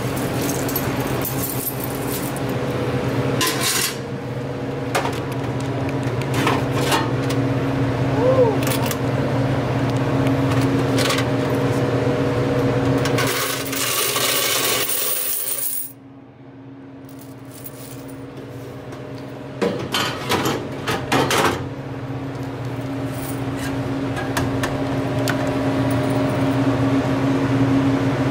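Coins clinking and rattling as they are handled during a collection from a soda vending machine's coin box, over a steady low hum.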